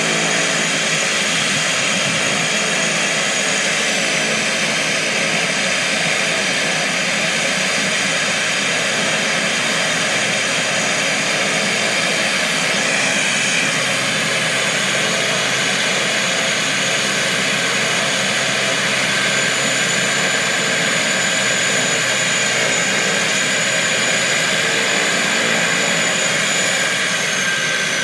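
Twin Otter's two PT6A turboprop engines running on the ground: a steady, loud propeller and turbine roar with a high whine over it. Near the end the whine starts to drop in pitch.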